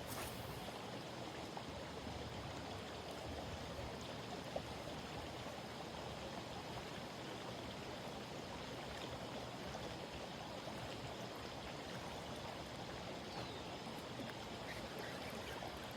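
Stream water running steadily, with one faint click about four and a half seconds in.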